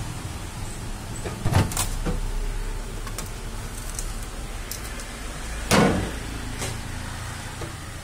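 Plastic knocks from a single-door refrigerator's chiller tray and flap being handled: a few light knocks about a second and a half in, then one louder thump near six seconds and a couple of fainter knocks after it, over a steady low background rumble.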